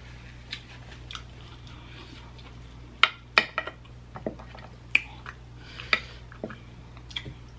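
Close-miked eating sounds: chewing and mouth smacks, with a scatter of sharp clicks as fingers pick through mussels and shrimp in a glass dish. The loudest clicks come about three seconds in.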